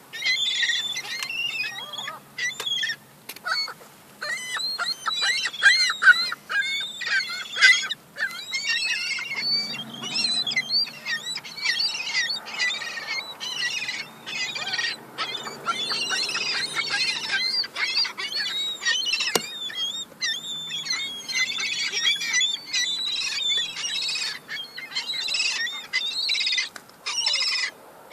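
A group of young gulls calling over one another in a constant, noisy squabble over food crumbs: many high, quick, overlapping calls with hardly a gap.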